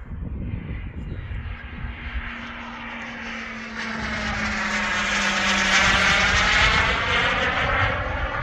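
KingTech K102 turbine of a Boomerang Ranger RC jet flying past: a steady jet hiss that swells, loudest about six seconds in, then eases a little.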